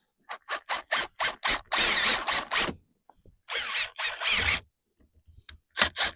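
Self-tapping screws being driven in to fix a new handle: a quick run of short sharp bursts, then two longer stretches of driving, and more short bursts near the end.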